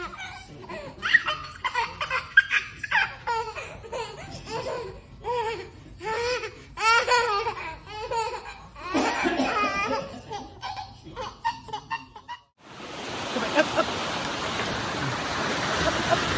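A person laughing hard in short repeated bursts for about twelve seconds. It cuts off abruptly and is followed by a steady rushing hiss.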